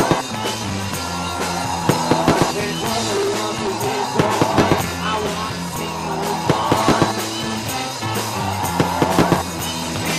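Rock music playing, with bass, guitar and a drum kit beating in short clusters of hits about every two seconds.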